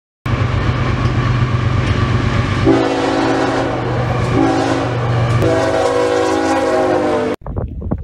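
Freight train's diesel locomotive rumbling as it approaches, then its horn sounds three blasts, a chord of several tones, the last one the longest. The sound cuts off suddenly near the end.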